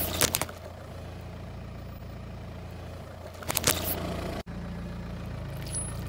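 A Volkswagen car's engine idles steadily while its tyre creeps over gravelly asphalt and onto a squishy bead-filled toy. Short sharp crackles come just after the start and again about three and a half seconds in as grit and the toy are crushed under the tyre, and the sound drops out for an instant a little later.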